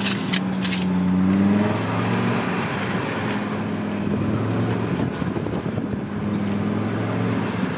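Audi RS3's five-cylinder engine and HMS exhaust heard from inside the cabin, running at low, fairly steady revs while cruising slowly. The pitch rises slightly over the first two seconds, and there are a few sharp clicks in the first second.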